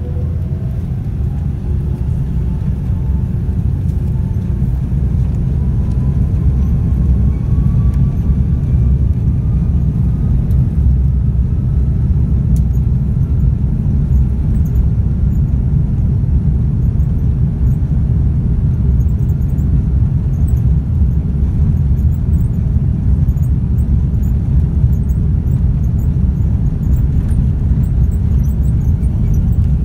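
Cabin noise of an Airbus A330-300 with Rolls-Royce Trent 700 engines on its takeoff roll: a loud, steady rumble of engines and runway, with a faint whine rising in pitch over the first fifteen seconds as the engines spool up.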